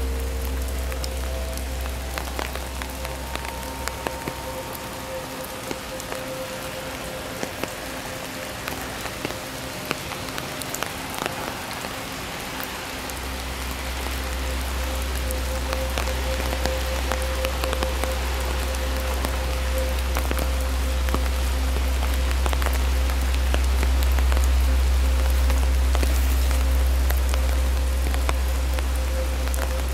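Steady rain falling through a leafy tree canopy onto a stone path, with many single drops ticking. A low rumble sits under it, thinning out for several seconds before coming back around the middle.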